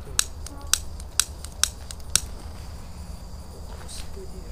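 Piezo igniter of a jet torch lighter clicking five times, about half a second apart, as it is struck to light a firecracker fuse.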